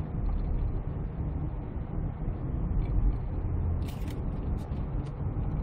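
Inside the cabin of a moving Kia Mohave The Master SUV with its 3.0 V6 diesel: a steady low rumble of engine and road noise while cruising.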